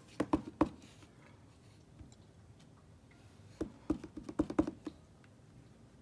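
Clear acrylic stamp block tapping against a watermark ink pad and cardstock: three quick taps near the start, then a rapid run of about eight taps around four seconds in, as the stamp is inked and pressed.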